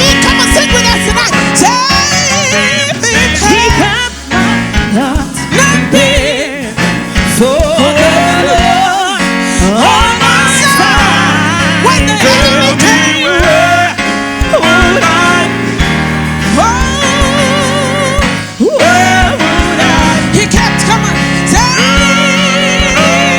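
Gospel worship music: a singer's voice with vibrato and melismatic runs over a band with a steady beat.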